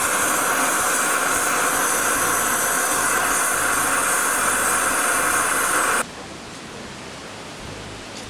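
Oxy-acetylene torch flame hissing steadily as it heats a seized alternator bolt; the hiss cuts off suddenly about six seconds in, leaving only faint background.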